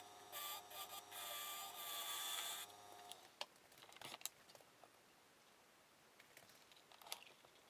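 Wood lathe running while a turning tool scrapes the spinning hardwood blend of a segmented glue line, a faint hiss over a steady motor tone. It stops abruptly about two and a half seconds in, and then come a few light clicks.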